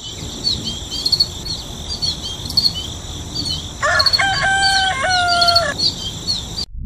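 Farmyard ambience. Small birds chirp over and over above a steady high insect trill, and a rooster crows once, about four seconds in, for about two seconds. The sound cuts off abruptly just before the end.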